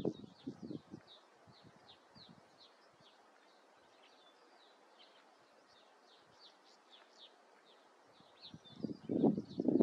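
Repeated short, high, thin chirps from White-winged (Güldenstädt's) Redstart fledglings, each one sliding down in pitch, coming about two or three a second. A couple of low thumps sound in the first second, and a louder low rumble comes in near the end.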